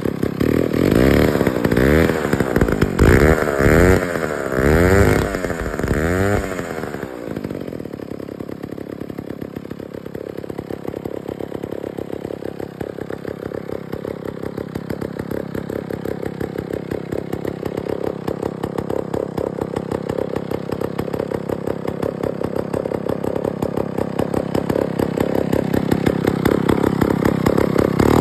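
McCulloch 99 two-man chainsaw's two-stroke engine revved in about six quick blips, then settling into a steady idle that slowly grows louder.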